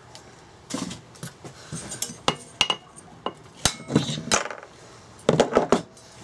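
Sharp metallic clinks and knocks, scattered through and bunched in two quick clusters in the second half, as a hammer works the finned flywheel of a Briggs & Stratton engine loose on its crankshaft and the flywheel is lifted off.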